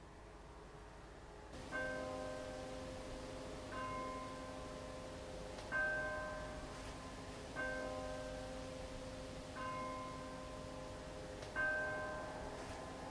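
Bells struck one at a time, about every two seconds, starting about a second and a half in; each note rings on and fades, and the notes come at differing pitches.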